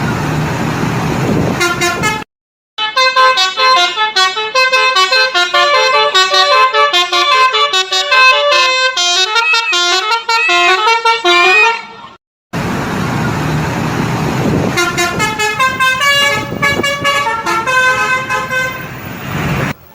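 Tour bus 'telolet basuri' musical multi-tone horn playing a fast tune of quickly changing notes, with the bus engine running underneath at the start and near the end. The sound breaks off abruptly twice, at about two seconds and twelve seconds in, between separate horn performances.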